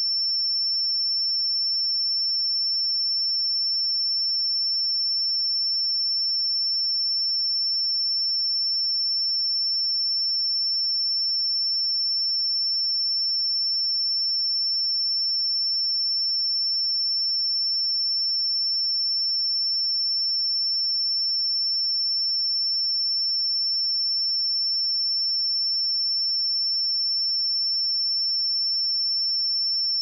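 A pure 5391 Hz sine-wave test tone, a single high-pitched whistle held steady at constant loudness.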